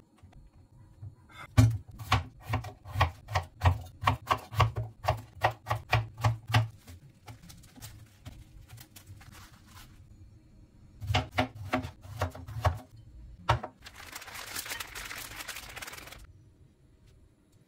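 Chef's knife chopping vegetables on a plastic cutting board: a steady run of strokes for about five seconds, then a shorter run after a pause. Near the end comes about two seconds of hissing as corn kernels are poured from a pouch into a ceramic bowl, stopping suddenly.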